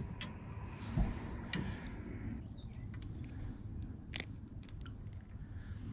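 Quiet handling noises while a hooked largemouth bass is unhooked by hand: a few scattered small clicks and ticks over a low steady rumble.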